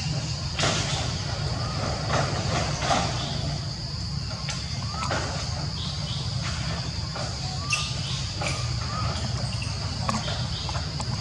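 Forest ambience: a steady high-pitched insect drone over a low constant rumble, broken by scattered short clicks and a few brief chirps.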